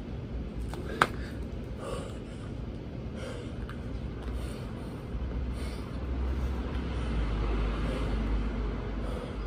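A man breathing hard in heavy puffs between burpees, with a single sharp knock about a second in. A low outdoor rumble swells in the second half.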